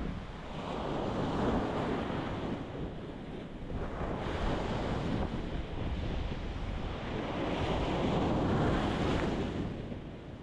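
Ocean waves breaking on a rocky shore: three waves in about ten seconds, each a swelling wash of surf that fades away, over a steady low rumble.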